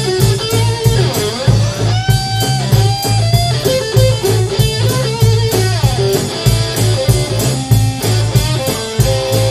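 Live electric-guitar, bass-guitar and drum-kit trio playing an instrumental passage: the electric guitar plays a lead line with bent and sliding notes over a steady drum beat and a driving bass line.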